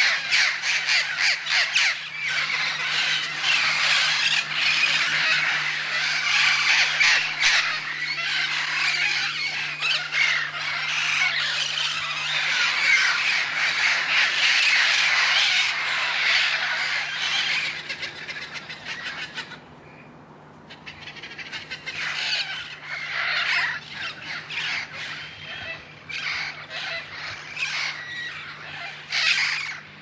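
A large flock of parrots calling all at once, a dense din of overlapping squawks. About two-thirds of the way through it briefly falls away, then comes back thinner, with more separate calls.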